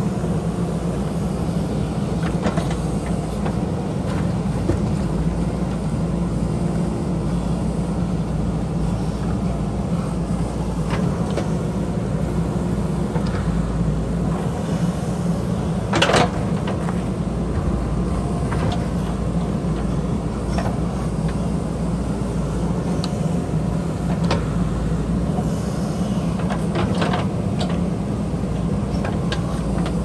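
JCB backhoe loader's diesel engine running steadily while the backhoe arm digs soil and rock. A few short sharp knocks of the bucket and arm are heard, the loudest about halfway through.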